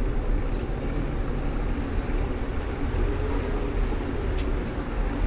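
Steady wind rush and low rumble on an action camera's microphone while riding a bicycle.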